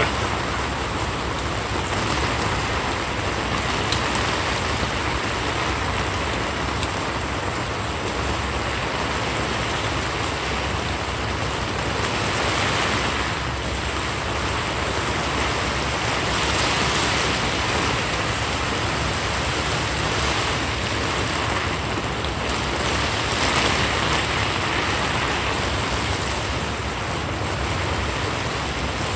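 Plane iron rubbed back and forth on a wet sharpening stone to take off the burr: a gritty scraping over a steady rushing hiss.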